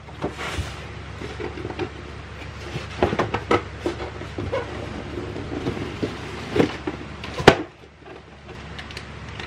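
Hands handling an RC kit's box contents and small plastic parts bags: rustling and a scatter of small clicks and taps, with one sharp click about seven and a half seconds in.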